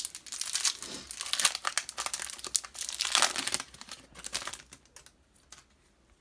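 Foil booster-pack wrapper crinkling and tearing as it is ripped open by hand, a dense crackle that thins to a few scattered crackles and dies away after about five seconds.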